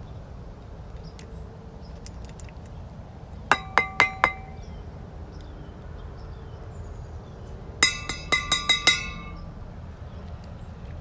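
Two quick runs of hard, ringing clinks: four strikes about three and a half seconds in, then about six more near eight seconds, each ringing briefly.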